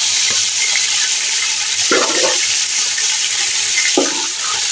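Chicken pieces frying in hot oil in a metal pot, a steady sizzle, as wet ginger-garlic and tomato paste go in and are stirred through with a spatula; two short louder stirring noises come about two and four seconds in.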